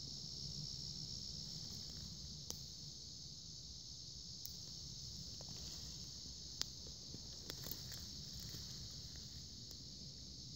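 Steady high-pitched insect chorus, with a few sharp clicks and a low rumble underneath.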